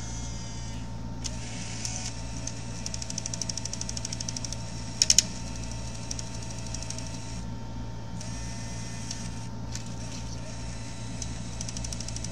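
Bose Wave Radio CD changer mechanism running with rapid, evenly spaced clicking from its gear train, and a louder burst of three clicks about five seconds in. The clicking is the sign of a drive gear in the changer that is missing a tooth.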